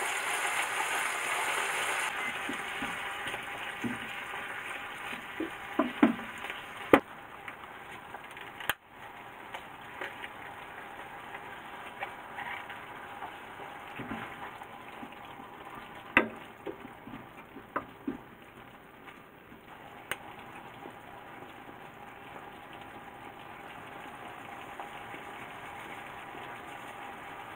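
Tomato and basil sauce sizzling in a hot frying pan with bacon: loud for the first couple of seconds as the liquid hits the pan, then settling to a lower steady sizzle. Tongs tap against the pan a few times while it is stirred.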